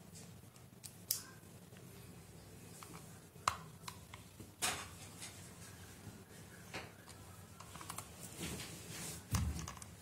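Small metallic clicks and taps of a screwdriver and fingers working the cover screws of a 2.5-inch laptop hard drive, a few sharp ticks spaced a second or more apart, with a duller knock near the end as the drive is handled on the table.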